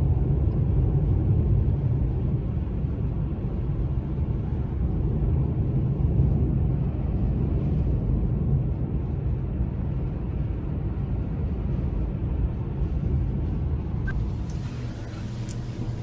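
A car driving on a snow-covered motorway, heard from inside the cabin: a steady low rumble of the engine and the tyres rolling on the snow. About two seconds before the end it cuts abruptly to a different, hissier recording.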